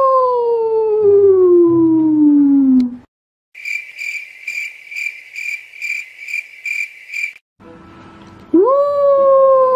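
A wolf howling: one long call that rises quickly, then slides slowly down in pitch and stops about three seconds in. After a short gap come crickets chirping at about two chirps a second, then another long howl of the same shape starts near the end.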